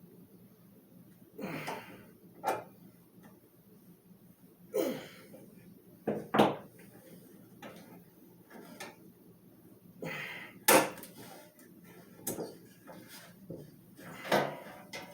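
Irregular knocks, clicks and short scrapes of hard box-fan parts being handled and set down, a dozen or so, with sharper knocks about six and eleven seconds in.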